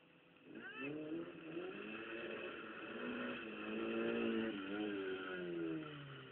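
Car engine revving hard. It sweeps up sharply about half a second in, holds high and loud, then drops back near the end.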